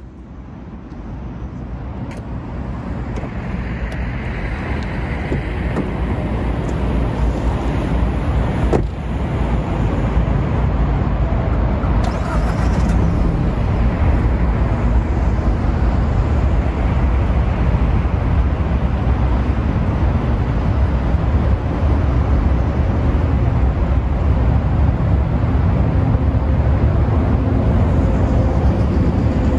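Mazda CX-30's SkyActiv-X 2.0-litre four-cylinder engine idling cold, heard at the tailpipe as a steady low exhaust rumble. It swells up over the first several seconds, then holds even, with a brief click about nine seconds in.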